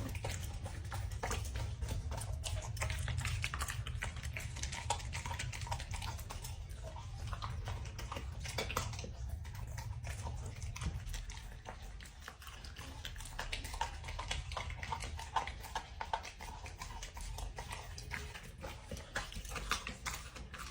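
Dog eating, a busy run of irregular clicks and crunches of chewing, over a steady low hum.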